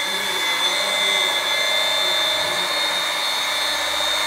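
Electric grinder fitted with a mixing paddle running steadily, stirring cement-based tile adhesive in a bucket to break up the lumps, with a steady high motor whine.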